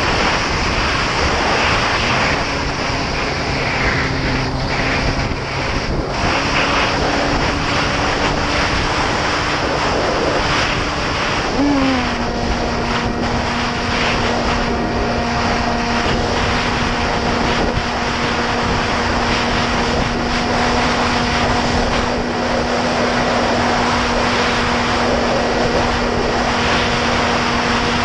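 Onboard sound of an electric FPV flying wing in flight: a loud rush of wind over the microphone with the brushless motor and propeller's faint steady hum. About twelve seconds in, the hum briefly jumps up in pitch and then holds steady a little lower.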